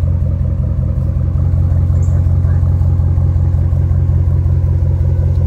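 A 2011 Ram 1500's 5.7-litre V8 idling steadily through a muffler-delete exhaust, the mufflers cut out. The exhaust note is loud and low and stays even, with no revving.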